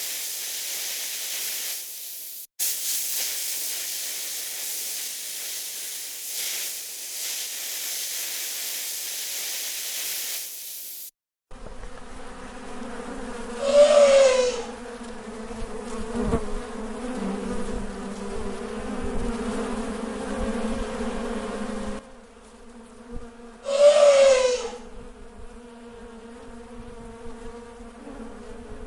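A steady high hiss, which cuts off sharply about eleven seconds in. A hornet swarm's steady buzzing follows, with two loud, brief sounds rising above it, about ten seconds apart.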